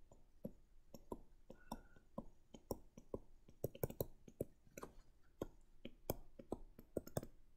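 A stylus tapping and clicking against a writing surface as words are handwritten, faint and irregular, a few clicks a second.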